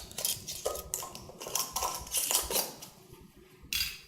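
Metal screw bands being twisted onto glass canning jars over their lids: a quick, irregular run of metal-on-glass clinks and scraping, with a brief lull about three seconds in.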